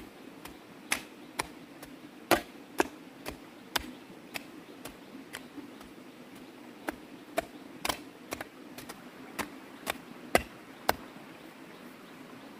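A digging tool chopping into the ground in a run of sharp strikes, about two a second, with a short pause about halfway through.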